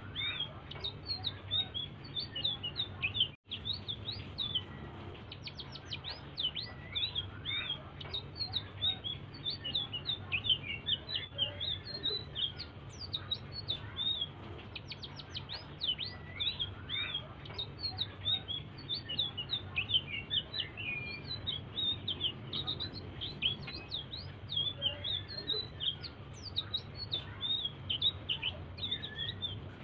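Small songbird that Indonesian keepers call selendang biru singing a soft, fast, unbroken stream of high chirps and twittering trills over a steady low hum. The sound drops out for an instant about three and a half seconds in.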